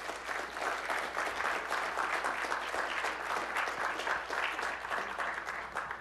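Audience applauding: many hands clapping together, fading out near the end.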